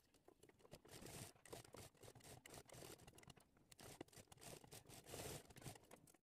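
Near silence, with a few faint scattered clicks and rustles.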